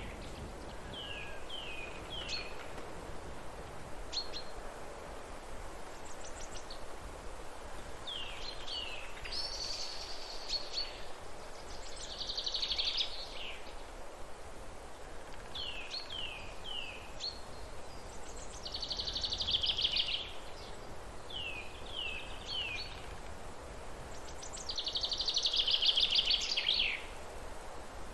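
Forest birds singing: short sets of three quick downward-sliding notes repeat every few seconds, and louder buzzy trills of one to two seconds come three times, the longest near the end. A steady background hiss of ambient noise runs underneath.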